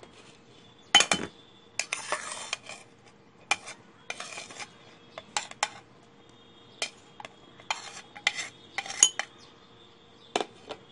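Metal spoon clinking and scraping against a glass jar as sugar and diced onion are spooned in: about ten sharp separate clinks, with two short scraping rustles in the first half.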